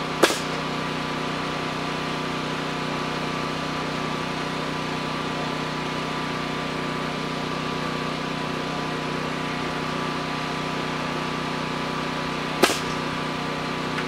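An engine idling steadily, with two sharp knocks, one just after the start and one near the end.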